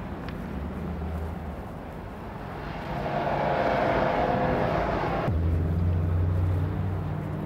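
City street traffic noise, with a louder passing-vehicle swell building from a little under three seconds in and cutting off abruptly a little after five seconds, then a low steady hum.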